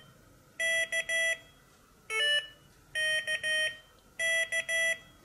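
Morserino-32 Morse trainer's small speaker beeping the letter K (dah-dit-dah) three times, as the letter is keyed on its paddle with the squeeze technique, with a single short beep between the first and second K.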